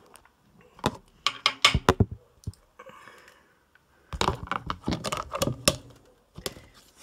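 A plastic container lid being fitted and pressed down onto a dish: a quick run of sharp plastic clicks and knocks about a second in, then another cluster from about four to six seconds in.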